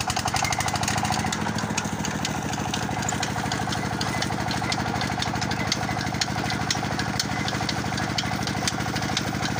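Stationary engine running a belt-driven sugarcane crusher, with a fast, even beat, while cane stalks are fed into the geared crushing rollers. It gets louder right at the start and then runs steadily.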